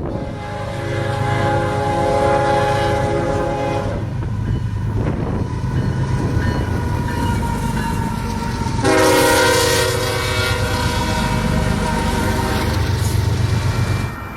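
Fouled locomotive air horn blowing over a running diesel locomotive and rolling train. One horn blast comes about a second in, with a louder blast around nine seconds in, and a thin single note hangs on between them.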